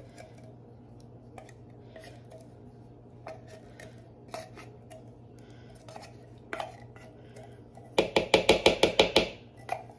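A spoon scraping faintly and clicking inside a can of condensed cream of mushroom soup, getting the last of it out. About eight seconds in comes a quick run of loud metal knocks, about eight a second, lasting a little over a second.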